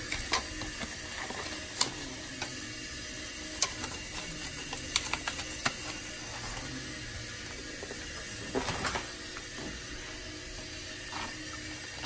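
New steam boiler filling with water: a steady hum and hiss, with irregular sharp clicks and ticks scattered through it.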